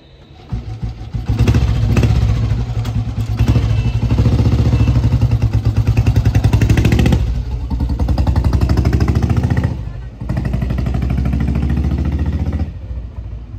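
A 50-year-old Royal Enfield Bullet 350's single-cylinder four-stroke engine being ridden past, with the loud, slow 'dug dug' exhaust beat of the old Bullet. The sound comes in about half a second in, dips briefly twice, and drops away near the end.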